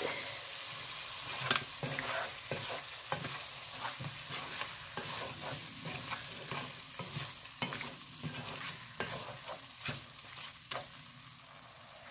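Beef and tomato curry frying in a metal pot with a steady sizzle, while a spatula stirs it with frequent scrapes and knocks against the pot. This is the stage of browning the meat in its spices before water goes in. The stirring eases off near the end.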